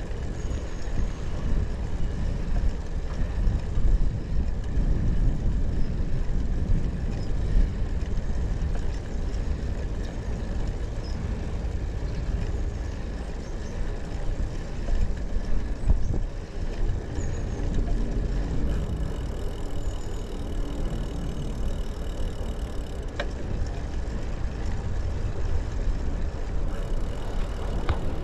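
Steady low rumble of wind on the microphone and tyre noise from a bicycle being ridden, with a couple of short clicks near the end.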